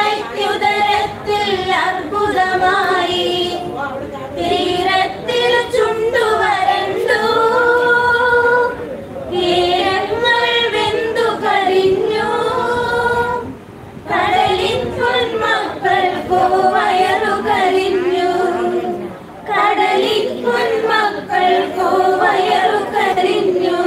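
A small group of women singing a Malayalam sea song together, unaccompanied, in phrases of several seconds with brief pauses for breath between them.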